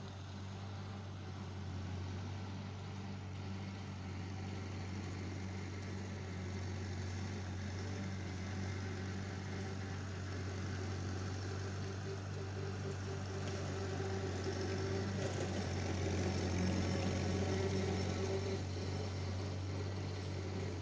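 Massey-Harris 22 tractor's four-cylinder engine running steadily as the tractor drives, growing louder in the later part of the clip as it moves nearer.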